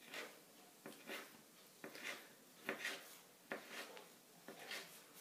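Kitchen knife slicing through a log of potato gnocchi dough on parchment paper, each cut ending in a soft tap of the blade on the counter. The taps are faint, mostly in pairs, about one cut a second.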